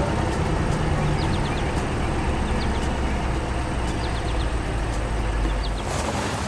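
Heavy machine engine running with a steady, deep rumble that cuts off sharply near the end.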